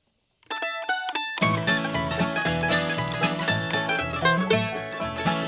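Instrumental opening of a country-bluegrass string band song: a few lone plucked string notes, then the full band with bass comes in about a second and a half in.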